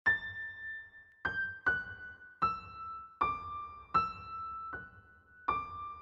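Background music: a slow melody of single high keyboard notes, each struck and left to ring, about one every three quarters of a second, starting suddenly after a brief pause.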